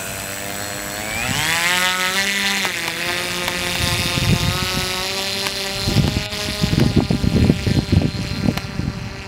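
A model autogyro's motor and propeller whine as the throttle comes up, rising in pitch over the first two seconds and then running steadily during the ground run. From about six seconds in, irregular low thumping joins the whine as the model is pulled up and lifts its nose.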